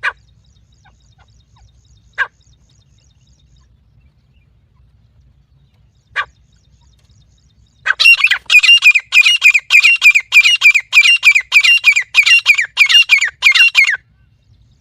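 Francolin (teetar) calls: three single short call notes a few seconds apart, then a loud, fast run of about twenty falling notes, roughly three a second, that stops suddenly a little before the end.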